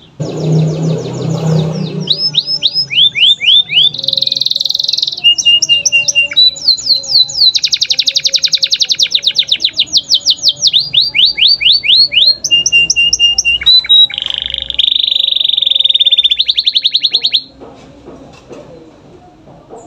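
Domestic canary singing a long, loud song of fast trills and rolls, moving through rapid repeated notes, falling sweeps and buzzing rolls, and stopping about seventeen seconds in. A brief low rustling noise sits under the first two seconds.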